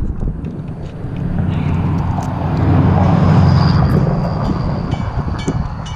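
A vehicle passing on the bridge: a low rumble that builds, peaks about three and a half seconds in and fades away, with a few small knocks from the camera being handled.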